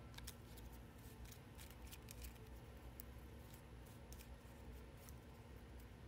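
Faint, irregular clicks and ticks as the piercer tip of a Take Your Pick tool pokes tiny die-cut bits out of an intricate gold paper leaf.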